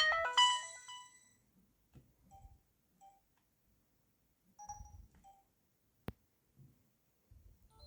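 LG BL20 Chocolate mobile phone: the chiming notes of a tone preview stop about a second in, followed by short soft beeps, each with a faint click, at irregular intervals, like keypad presses while scrolling to the next tone.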